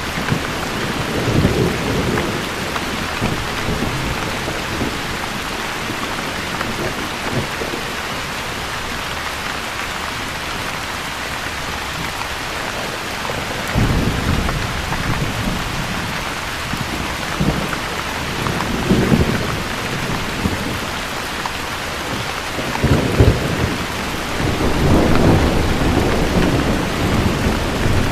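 Steady rain falling with thunder rumbling low several times, the longest and loudest rolls coming near the end.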